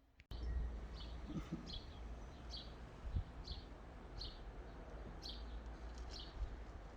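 A small bird chirping over and over, short high chirps that fall in pitch, about one a second, over a faint low rumble.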